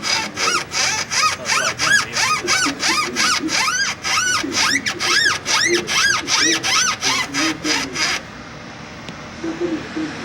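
Volkswagen CrossFox suspension squeaking over and over, about three squeaks a second, each rising then falling in pitch, stopping about eight seconds in. This is the squeal of worn stabilizer bar bushings.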